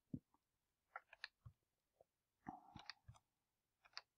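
Faint computer keyboard keystrokes, about ten short, irregular clicks, as letters are typed into spreadsheet cells.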